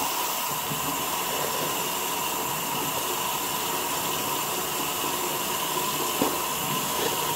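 Running water hissing steadily, with a toothbrush scrubbing faintly under it.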